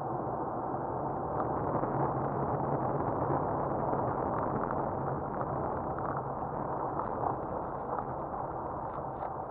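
Steady road noise inside a moving car: tyres rolling on a packed-snow road, with a low engine hum underneath.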